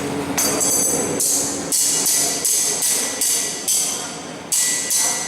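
Hammer striking metal, sharp ringing metallic blows at an uneven pace of about two a second.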